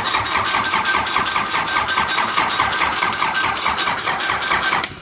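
Nissan CD17 diesel engine being cranked by its starter motor, a steady whine under an even rhythm of compression pulses, without firing up. The cranking cuts off suddenly near the end: the engine won't start.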